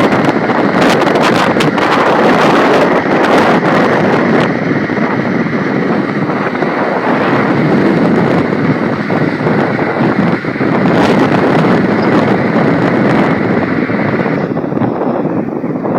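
Strong wind blowing: a loud, continuous rush with crackling gust buffeting in the first few seconds, thinning slightly near the end.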